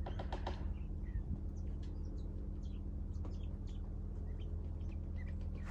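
Songbirds chirping in short, scattered calls over a steady low rumble.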